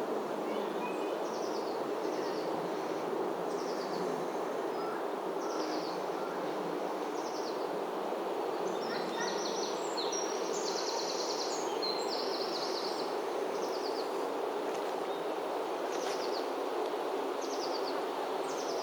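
Songbirds singing: short, high descending phrases repeated every second or so, with a fast buzzy trill near the middle, over a steady background noise.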